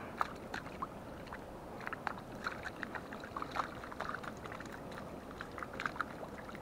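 A hooked planter rainbow trout flopping and thrashing in shallow water against the rocks, making irregular small splashes and sharp ticks that keep coming without letting up.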